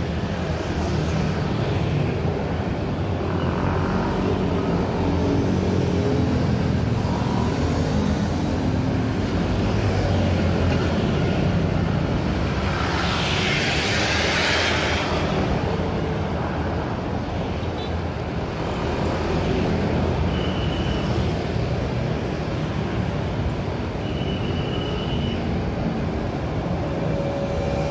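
Busy city street traffic: a steady stream of cars and small motor scooters driving past, with engines and tyres making a continuous rumble. About halfway through, a louder hissing rush rises and fades as a vehicle passes close.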